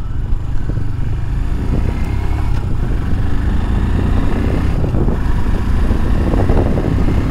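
Royal Enfield Himalayan's single-cylinder engine running steadily while riding, under heavy wind noise on a microphone that has lost its fluffy windshield.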